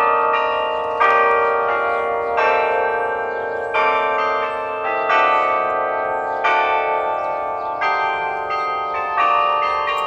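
The Delacorte Musical Clock's bell chimes playing a slow children's tune. Each struck note rings on under the next, with a new main note about every second and a half.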